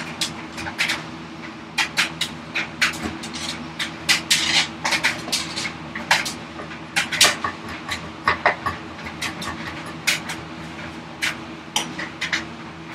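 Hand tool cutting into tough ash end grain: irregular short scraping strokes and sharp clicks, a few longer swishes among them, over a steady low hum.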